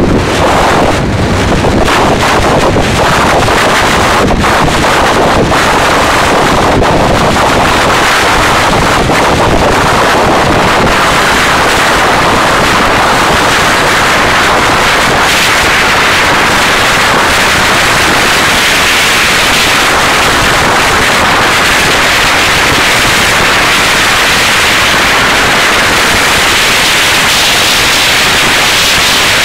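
Heavy wind noise on the microphone of a camera on a motorcycle at high speed: a loud, steady rush of noise, gusty and buffeting for the first ten seconds or so, then evener and hissier, with no engine note standing out.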